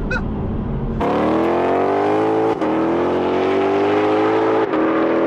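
2021 Shelby GT500's supercharged 5.2-litre V8 at full throttle, heard from the roadside after about a second of cabin noise. The engine note climbs steadily, drops briefly for two quick dual-clutch upshifts about two and a half and four and a half seconds in, and climbs again after each.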